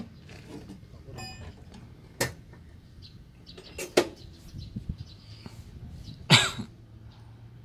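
A person coughing, the loudest cough about six seconds in, with a couple of sharp short knocks or coughs earlier, over a faint steady low hum.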